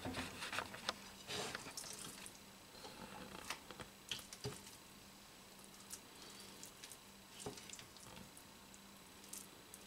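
Faint scraping and soft squishing of a silicone spatula packing mashed sweet potato into a stainless steel measuring cup, with scattered light clicks of the spatula against the metal cup. A faint steady low hum runs underneath.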